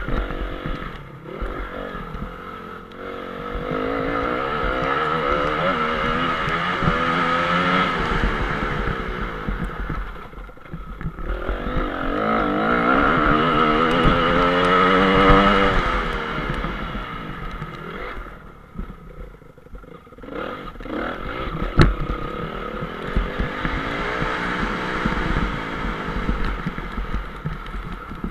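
Honda CRF250 motocross bike's single-cylinder four-stroke engine heard from onboard, revving up hard and rising in pitch on the straights, then easing off between them. A single sharp knock cuts through about three quarters of the way in.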